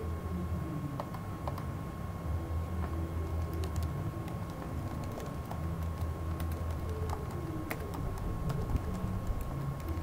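Computer keyboard typing: irregular, scattered key clicks as an email address and password are entered. A steady low hum and a thin high tone run underneath.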